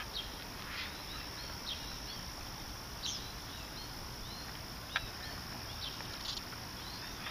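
Outdoor summer ambience: a steady high-pitched insect drone with short bird chirps scattered throughout. A single sharp click about five seconds in.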